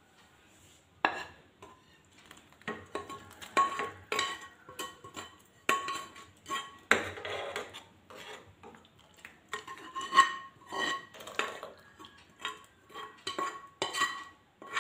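A steel spoon scraping and clinking against a nonstick frying pan and a steel saucepan as cooked carrot is scraped into boiled milk and sago, with many short scrapes and taps, some ringing briefly. It starts about a second in, and a wooden spatula scrapes the pan near the end.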